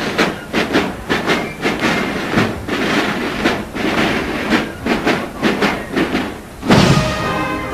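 Military marching band's drums beating a steady march rhythm. About a second before the end the band swells into louder music with held notes over a heavier drumbeat.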